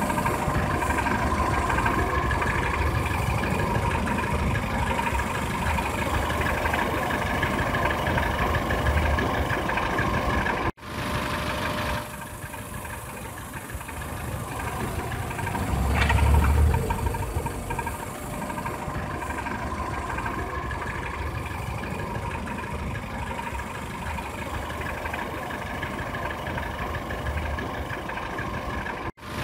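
Peugeot 307 petrol engine running at idle while its abnormal noise is demonstrated. The engine swells briefly in loudness about sixteen seconds in.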